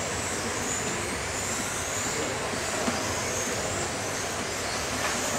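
Several electric radio-controlled racing cars running laps on a carpet track: high motor whines rising and falling as the cars accelerate and slow through the corners, over a steady rush of noise.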